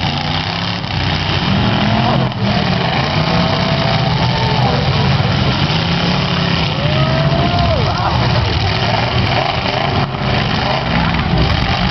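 Engines of several demolition derby cars running loudly together, rising and falling in pitch as they are revved.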